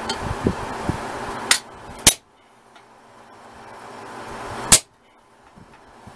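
Hammer blows on a piece of steel chainsaw bar being cut: three sharp, ringing strikes, a lighter one then two loud ones about two and a half seconds apart.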